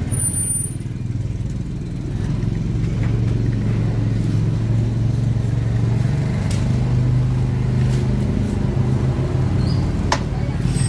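A steady low motor drone that grows a little stronger after about two seconds, with a few faint clicks.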